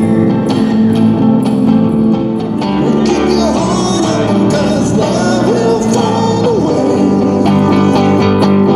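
Soft-rock band music: electric bass and guitar under a sung vocal line.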